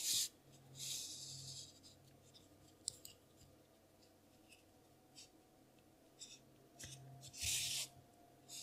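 Worsted-weight yarn being drawn through crocheted stitches with a yarn needle: soft scratchy rasps as the strand slides through the fabric, one at the start, a longer one about a second in, and another about seven and a half seconds in, with faint handling rustles between.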